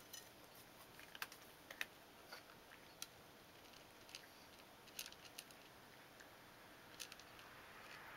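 Cat eating dry food from a bowl: faint, sharp crunching clicks at irregular intervals.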